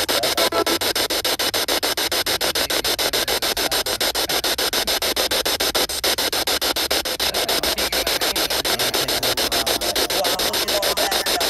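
Spirit box (ghost box) sweeping through radio frequencies: loud static chopped in a rapid, even rhythm, with faint snatches of broadcast sound between the chops.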